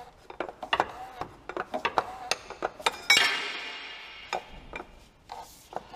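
Hand tools clicking and clinking on metal under the car as the oil drain plug is refitted. About three seconds in comes one loud, ringing metallic clang that slowly dies away.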